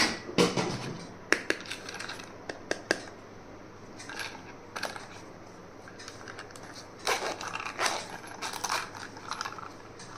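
Small stationery items and their packaging being handled during an unboxing: a series of light clicks and taps, with short bursts of rustling about a second in and again around seven to nine seconds in.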